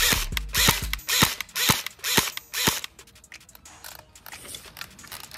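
Umarex HK416 airsoft electric gun firing: a quick run of shots, then single shots about two a second. Softer clicking follows for the last couple of seconds.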